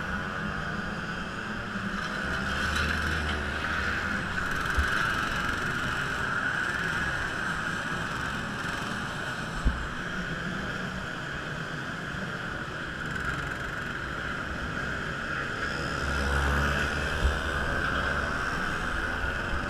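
Racing kart engine running at speed, heard from an onboard camera, with other karts close by. Its note eases off in the middle and picks up again near the end, with three sharp knocks along the way.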